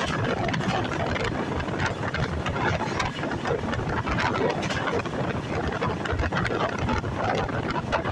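Express passenger train running at speed, with a steady rumble of wheels on the rails and constant rattling and clatter.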